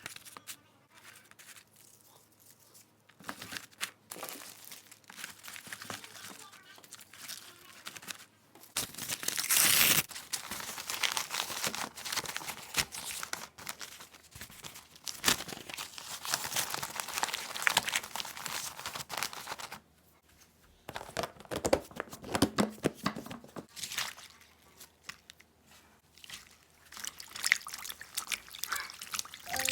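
Crinkling and rustling of packaging being handled, in irregular stretches with many small clicks and knocks; the loudest stretch comes about ten seconds in.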